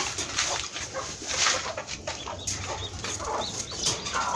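Chickens of different ages calling, with many short clucks and high peeps one after another.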